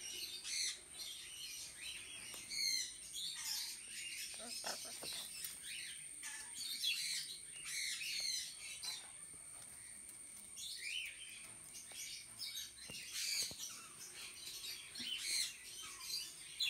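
Several birds chirping and tweeting in quick, overlapping short calls, over a steady high-pitched whine.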